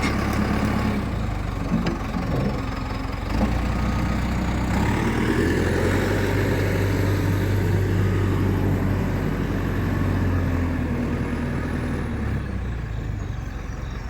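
Case 480 backhoe's engine running as the machine is maneuvered on a trailer, working harder for several seconds in the middle before easing back.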